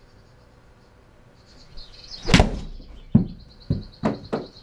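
A golf club strikes a ball into a simulator impact screen, one loud sharp smack about two seconds in, followed within two seconds by four shorter, sharp knocks.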